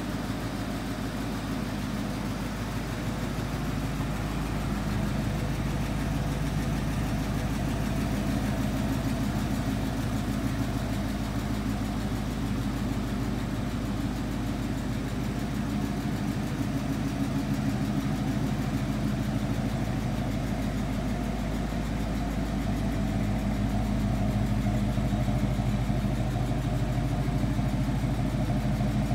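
1979 Ford Bronco's V8 engine idling steadily.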